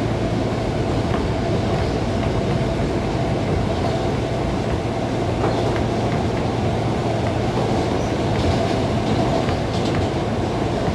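R160A subway train running at steady speed: a continuous rumble of wheels on rail, with a steady tone running through it and scattered faint clicks.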